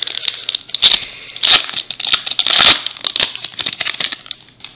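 Foil wrapper of a Topps Opening Day baseball card pack crinkling and tearing open, with louder rips about one and a half and two and a half seconds in. It dies away near the end.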